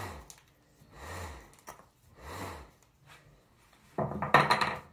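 A wooden buzz-saw whirligig toy, a disc spun on a twisted string between two handles, buzzing in pulses a little more than a second apart. Each buzz rises and falls in pitch as the string is pulled and let back, and the pulses weaken toward the end. A short, loud clatter comes near the end.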